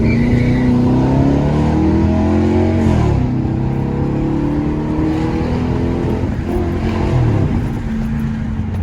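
Straight-piped Chrysler 300C's Hemi V8 exhaust pulling hard under acceleration. The note climbs, drops sharply at a gear change about three seconds in, then climbs again and holds.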